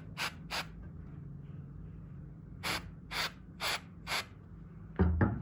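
Short scraping strokes of a hand working on metal: two near the start, then four at about two a second, over a steady low hum. Two sharp knocks follow near the end.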